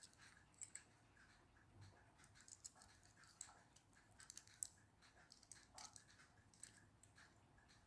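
Faint, scattered small clicks of a plastic key-shaped multi-tool being handled, its parts being turned.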